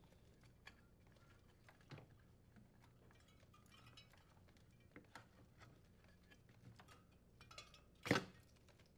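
Faint scattered clicks and rustles of a hand handling wires, connectors and plastic parts inside a refrigerator's evaporator compartment, with one louder, brief rustle near the end.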